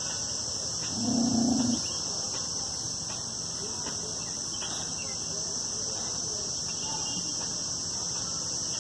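Steady high insect buzz, like crickets or cicadas, with one brief, low, pitched call about a second in.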